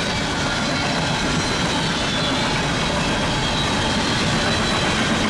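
Empty coal cars of a Union Pacific coal train rolling past at speed: the steady noise of steel wheels running on the rails, with a faint high whine above it.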